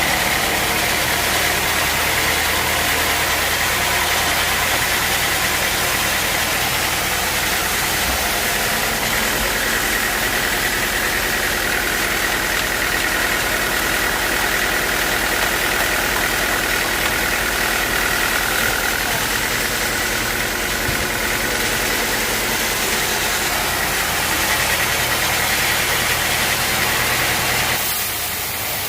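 Bandsaw sawmill running steadily, likely sawing teak, a constant machine noise with a high whine held throughout.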